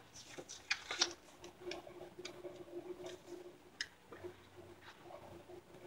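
Pages of a paper booklet being flipped by hand: a quiet series of light, uneven page flicks and rustles.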